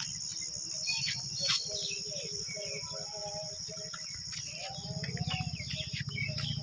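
Outdoor roadside ambience: a steady high-pitched insect drone with scattered bird chirps, over a low rumble that grows louder near the end.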